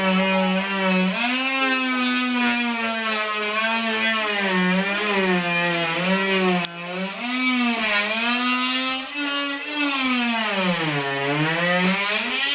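An electric power tool's motor, like a drill, running continuously with its pitch wandering up and down as its speed changes under load, with a brief drop about seven seconds in and a deep slowdown near the end.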